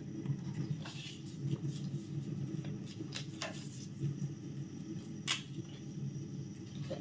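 Pandan leaves rustling and crackling as they are folded and tied into a knot by hand, with a few crisp snaps over a steady low hum.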